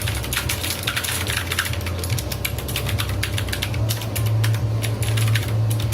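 Regular typing on a keyboard fitted with RAKK Milk White PBT keycaps: a rapid, continuous run of crisp key clicks, over a steady low hum.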